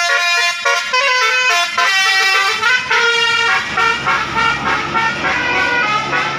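Basuri telolet bus air horn playing a fast tune of changing notes. A low steady hum joins about four seconds in.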